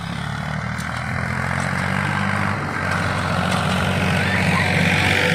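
Old farm tractor's engine running steadily as the tractor drives closer, growing louder.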